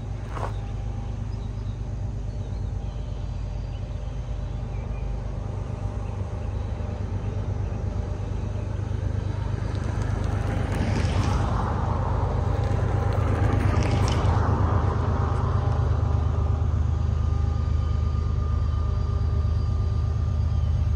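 Diesel locomotives of a CSX freight train running: a steady deep engine rumble that grows louder from about eight seconds in as the train draws near, with a louder rushing noise swelling through the middle.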